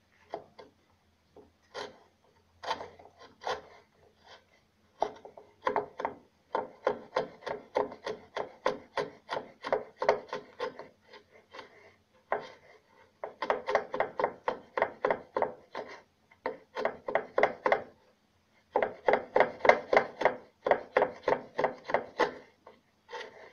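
Small wooden hand plane paring wood from a recess in an electric cello's wooden body, in quick short cutting strokes at about three a second. The strokes come in runs broken by brief pauses.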